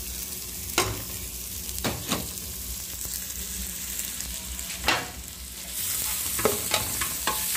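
Chopped onion and garlic frying in hot fat with pork cracklings in an aluminium pot: a steady sizzle, with a few clicks and scrapes of a spoon against the pot. The sizzle grows louder about six seconds in.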